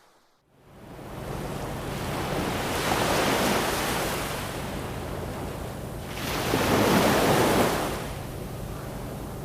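Ocean waves washing onto a shore, coming in after a brief moment of near silence and swelling twice, the louder wave about seven seconds in.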